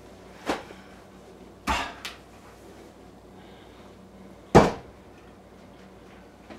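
Four sharp knocks of objects being handled and set down on a table: one, then two close together, then the loudest about four and a half seconds in.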